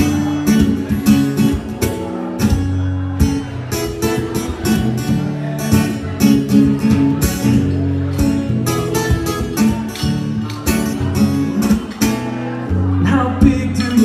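Acoustic guitar played solo, strummed chords in a steady rhythm as the instrumental intro to a folk song.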